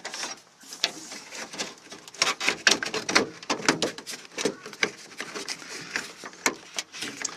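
Irregular clicks, knocks and scraping of a door trim channel being worked loose from inside a Toyota Tarago's front door.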